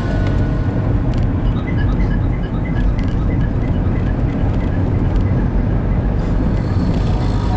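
Steady engine and tyre rumble heard inside the cabin of a car driving along a road. A quick run of short, evenly spaced high notes sounds over it from about a second and a half in until past the middle.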